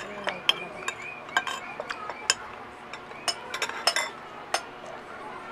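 Cutlery clinking against plates and dishes during a meal: a dozen or so sharp clinks at uneven intervals, with a faint voice in the background during the first couple of seconds.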